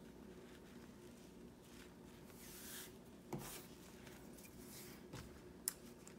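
Faint rustling of ribbon being handled and pressed down by hand, with a soft tap about three seconds in and a sharp click near the end, over quiet room tone with a low steady hum.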